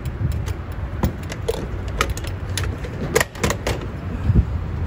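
Gas-pump fuel nozzle and hose clicking and clunking as the nozzle is taken off the pump and carried to the car's filler, several sharp knocks about a second apart over a steady low rumble.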